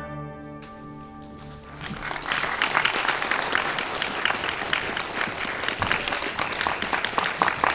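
The orchestra's last low held note fades away, and about two seconds in a theatre audience breaks into sustained applause.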